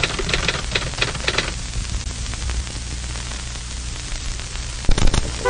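Steady static-like hiss with crackling and a low hum underneath. The crackles are busiest in the first second or so, and a few sharper crackles come near the end.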